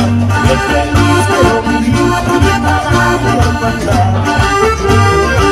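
Live folk band playing through a PA, led by accordion with guitar and a steady pulsing bass.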